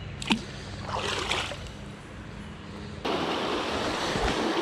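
Shallow stream riffle rushing over rocks, turning much louder about three seconds in. Before that, a sharp click and a short watery splash about a second in.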